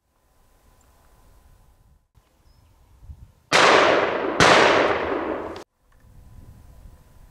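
Two hunting rifle shots about a second apart, each followed by a long echoing tail, the second fired before the first has died away. The sound cuts off abruptly about two seconds after the first shot.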